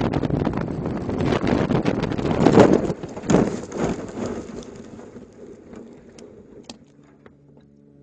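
Engine-out Beechcraft Bonanza crash-landing into tall grass: a loud rush of wind and a dense crackling of vegetation against the airframe, loudest about two and a half seconds in, then dying away as the plane slides to a stop. A couple of sharp clicks follow, and steady music tones come in near the end.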